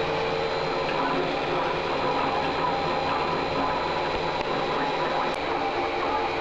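Servo motors and ball screws of a CNC-converted Acra 9x42 mill driving the table along its axes under program control: steady mechanical running with several held tones that shift slightly as the moves change.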